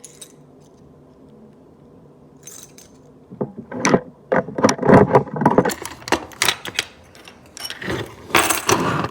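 A bunch of keys jangling and clicking against metal as a pull station is unlocked and opened, in a quick run of rattles starting about three seconds in.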